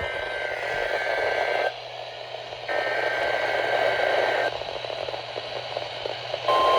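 NOAA Weather Radio weekly-test alert heard through a receiver over heavy static. Two short bursts of two-tone SAME header data are followed by a fainter stretch of hiss, and about six and a half seconds in the steady 1050 Hz warning alarm tone starts.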